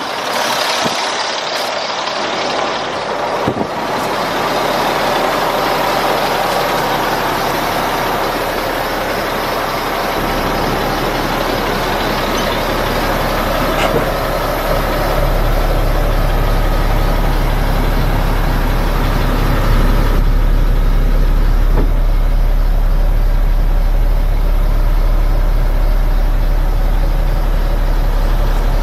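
Caterpillar 3126 inline-six diesel engine of a Sterling L8500 truck idling steadily, its low rumble growing heavier partway through.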